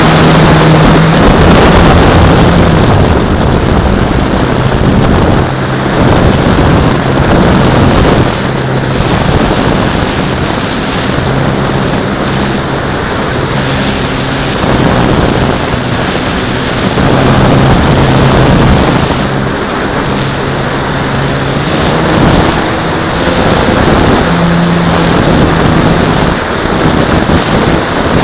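Radio-controlled Extra 330L model plane's motor and propeller running in flight, heard from the cowl-mounted camera with heavy wind rush over the microphone. The pitch steps up and down several times with throttle changes through the manoeuvres.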